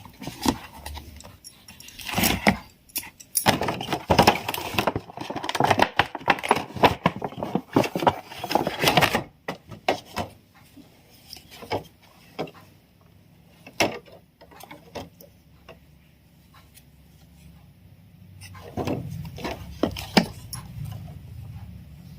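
Crystal slime being squished and stretched by hand, making quick wet clicks and crackles. The clicking is thick for several seconds, thins out to scattered pops, and picks up again briefly near the end.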